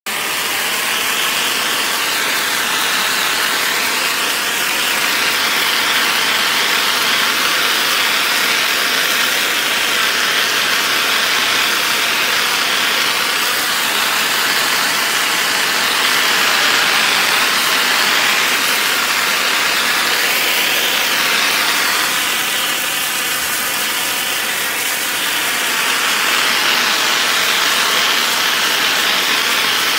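Pressure washer spraying water onto pavers: a steady, loud hiss of the jet on the stones, its tone shifting slowly as the spray moves.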